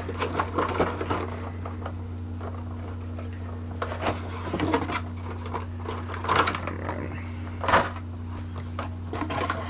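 Action-figure window box and its plastic tray being handled: scattered rustling, scraping and light clicks, with a couple of louder crinkling scrapes about six and eight seconds in, over a steady low hum.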